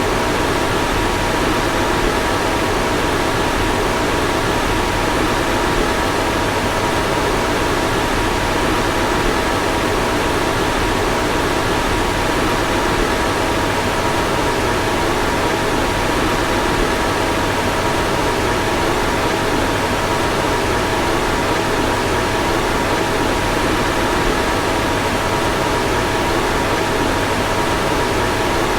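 A car fan running steadily: an even rushing of air with a faint steady whine in it.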